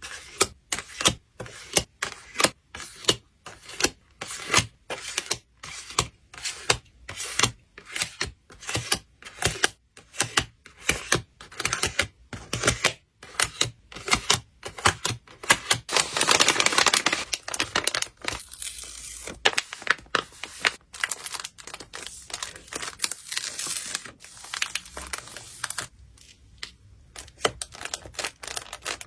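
Hands packing photocards in plastic packaging: a fast, irregular run of sharp taps and clicks, with plastic crinkling and a longer rustle a little past halfway.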